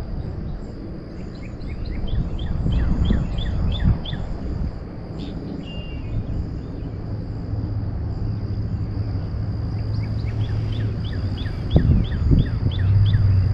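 A songbird singing two phrases of quick, downward-sliding notes, the first about two seconds in and the second about ten seconds in, over a steady low rumble of wind and outdoor noise and a thin, steady high tone. A couple of short knocks, one about four seconds in and one about twelve seconds in.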